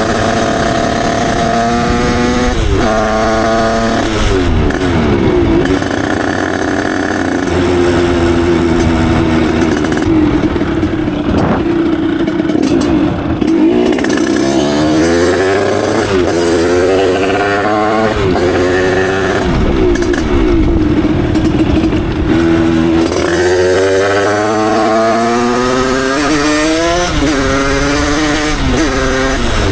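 Derbi Senda 50 two-stroke moped with a Stage6 88cc big-bore kit and a Voca Cross exhaust, ridden at speed. Its revs climb and drop back several times as it accelerates, and hold steadier for a few seconds midway.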